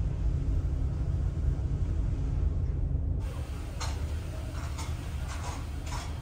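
Steady low hum of the ferry's engines and machinery through the ship's interior. After a cut about three seconds in, footsteps walking at an even pace, about two steps a second.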